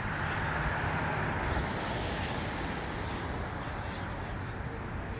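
Steady city street traffic noise: a low rumble under a broad hiss that swells over the first two seconds, then settles.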